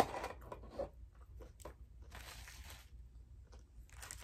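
Close-up eating sounds: crunching and chewing of fast-food breakfast, loudest in the first second, with scattered small clicks and a second noisy crunch a couple of seconds in.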